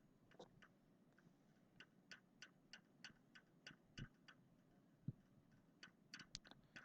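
Near silence with faint, sharp clicking, about three clicks a second in a run through the middle and scattered clicks before and after.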